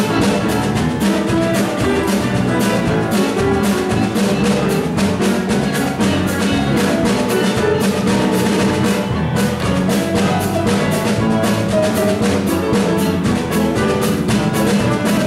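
Instrumental dance music with a steady drum beat, accompanying a stage dance number.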